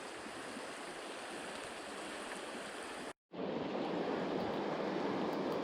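Rushing river current, a steady wash of flowing water. It cuts out for a moment about three seconds in and comes back louder.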